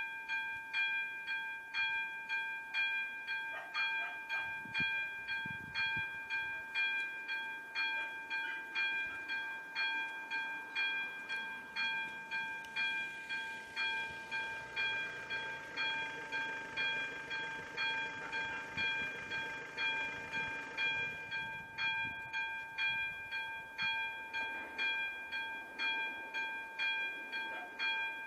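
AŽD 97 level-crossing warning bell (the Czech electronic 'umíráček' knell) ringing in steady, evenly spaced strokes, each a bright several-pitched ding. In the middle, a train's running noise swells up and fades away under the bell.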